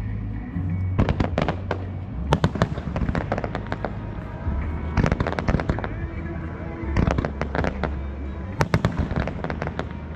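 Aerial fireworks shells bursting in quick clusters of sharp bangs and crackles, a new cluster every second or two, over music with sustained low notes.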